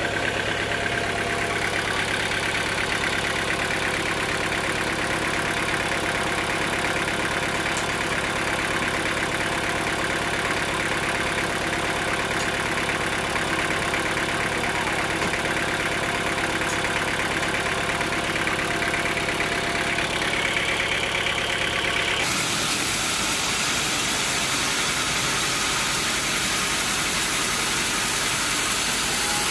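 Sawmill machinery engine running steadily at an even pitch. About 22 seconds in the sound changes abruptly to a hissier running noise with less low end.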